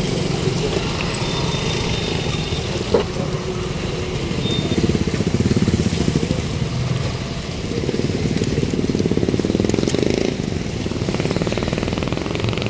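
Road traffic: vehicle engines running steadily, with motorcycles among them, and a sharp click about three seconds in.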